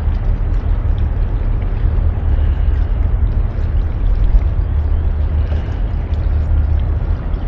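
Wind buffeting the microphone as a steady low rumble, over water sloshing against the boat hull.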